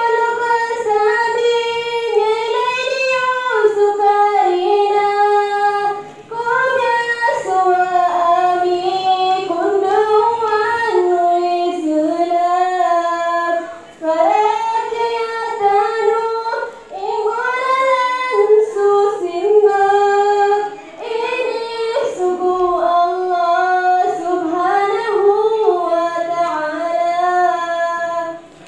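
A young female voice singing solo and unaccompanied into a microphone through a PA loudspeaker, in long melodic phrases with ornamented, wavering held notes, pausing briefly for breath several times.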